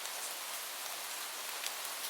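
Steady rain falling, an even hiss with scattered sharp drip ticks, one about one and a half seconds in.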